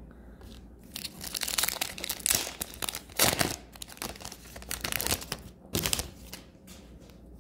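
A stack of Upper Deck hockey trading cards handled and slid through the hands, making irregular crinkling rustles in several bursts, loudest about three seconds in.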